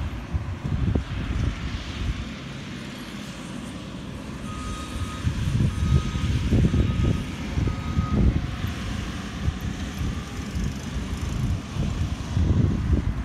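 Reversing alarm on a working machine beeping about five times near the middle, over a low, uneven rumble.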